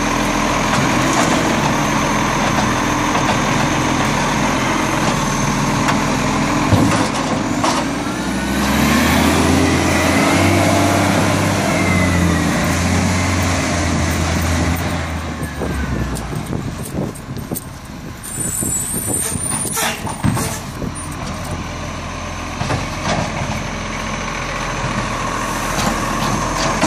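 Side-loader garbage truck working: its diesel engine runs steadily while the hydraulic arm lifts and tips a wheelie bin, with a sharp knock about seven seconds in. About eight seconds in, the engine revs up as the truck pulls away to the next bin, then it settles down to a few clanks.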